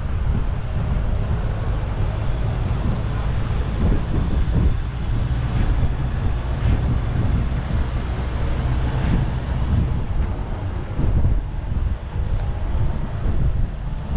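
Wind rumbling steadily on an action camera's microphone while riding an electric scooter, with road traffic around.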